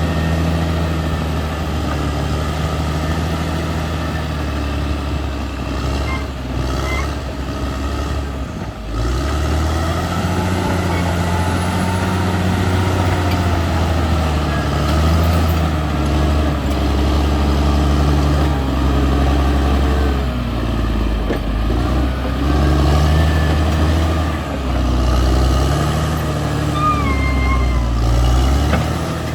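Caterpillar D6R XL bulldozer's diesel engine running under changing load, its pitch rising and falling as it works; it drops briefly about nine seconds in and comes back up.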